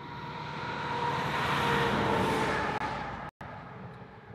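A road vehicle passing by: engine and tyre noise swelling to a peak about two seconds in, then fading away. The sound cuts out for an instant just after three seconds.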